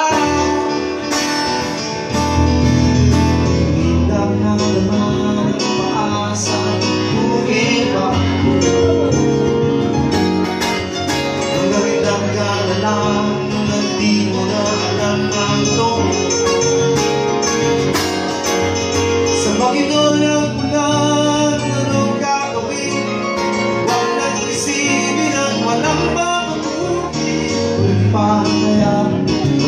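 Live acoustic duo music: a strummed acoustic-electric guitar and an electronic keyboard, with a man singing over them.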